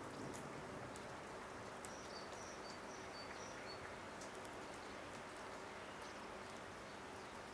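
Faint outdoor ambience: a steady hiss of open-air background noise, with a quick series of short high chirps about two to three and a half seconds in and a few faint ticks.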